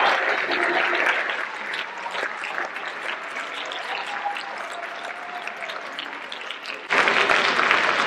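Audience and band members applauding. The clapping is loud at first and dies down over the first couple of seconds, stays lighter through the middle, then comes back loud all at once about seven seconds in.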